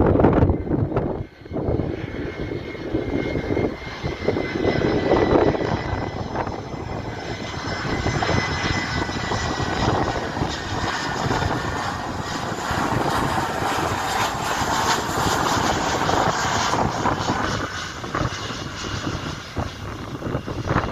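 Jet engines of a Boeing 737-524 (CFM56-3 turbofans) running as the airliner passes, a steady roar with a thin whine that falls slowly in pitch over the first half.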